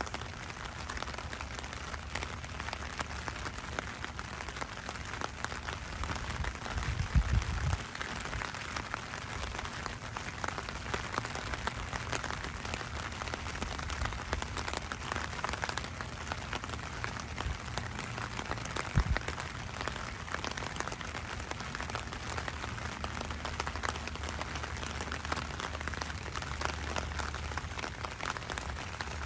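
Steady rain falling on a wet, puddled street, a dense patter of many small drops. Two low thumps stand out above it, one about seven seconds in and a sharper one about two-thirds of the way through.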